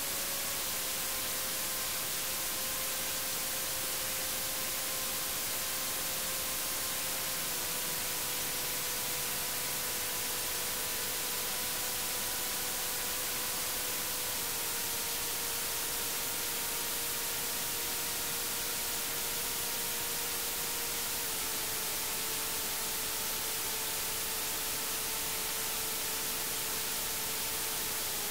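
Electronic soundtrack of steady, bright static hiss with a faint held tone underneath that drops in pitch by small steps every several seconds.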